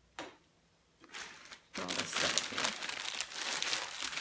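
Packing material crinkling and rustling in a cardboard shipping box as a hand rummages through it. It starts about a second in and gets louder and denser soon after. There is a short knock near the start.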